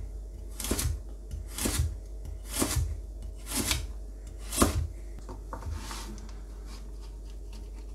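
Nakiri knife slicing lengthwise through a raw carrot and meeting a plastic cutting board, five cuts about a second apart. A few softer scraping sounds follow as the slices are pushed together on the board.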